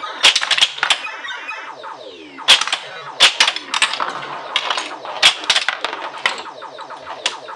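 1980 Williams Black Knight pinball machine in play: a run of sharp mechanical clacks at irregular intervals, mixed with the machine's electronic sound effects, warbling and gliding tones with a falling sweep about two seconds in.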